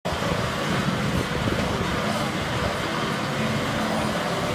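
Farm tractor diesel engines running with a steady low drone, under a constant rushing noise.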